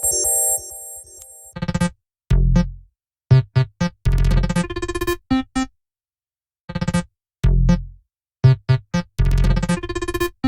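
Stock Android Ice Cream Sandwich ringtones played back to back. One tone ends about a second and a half in. The next, an electronic keyboard melody over deep bass notes, plays its phrase, pauses for about a second, and starts the phrase again as it loops.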